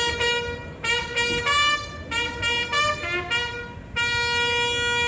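Ceremonial band music: a run of short, quick notes over a steady held note, then a long sustained chord about four seconds in.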